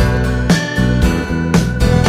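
Background music led by strummed guitar, with strokes about twice a second.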